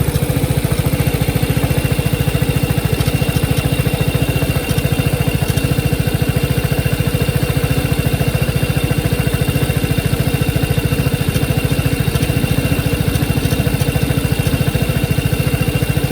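2021 Vespa GTS 300 HPE's single-cylinder engine idling steadily, with a metallic rattle from the rear of the engine compartment just above the transmission. The owner is unsure whether the rattle is normal for this scooter or a fault.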